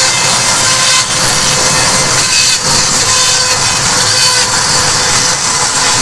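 Sawmill band saw running, its blade ripping lengthwise through a bark-covered log. A loud, steady noise that runs without a break.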